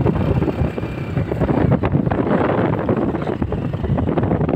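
Motorcycle engine running under heavy wind rumble on the microphone, with scattered knocks, as the motorcycle rides over sand.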